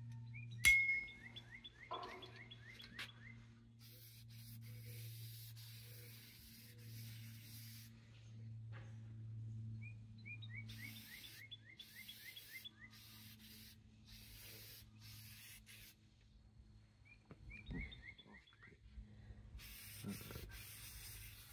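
Aerosol spray paint can hissing in bursts of a few seconds, laying black paint onto windshield wiper arms. A songbird's trill of quick falling chirps repeats several times, a sharp click sounds just under a second in, and a steady low hum runs underneath.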